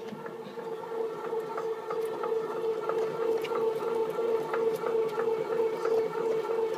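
TWINBIRD PY-E631W bread maker's kneading motor running, a steady hum with faint scattered ticks as the paddle works the dough in the pan.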